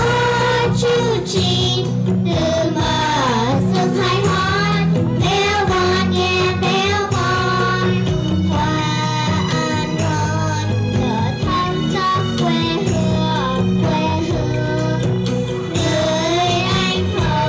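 A song playing: a sung melody, wavering in pitch, over a steady sustained accompaniment with bass.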